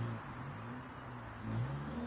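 A motor running, its low pitch rising and falling, swelling twice, over a steady rushing noise.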